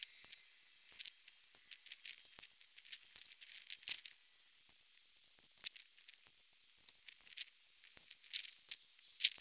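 Sped-up time-lapse sound of casting lead bullets with a six-cavity mould: a rapid, irregular stream of high-pitched clicks and ticks over a faint hiss, with one sharper click near the end.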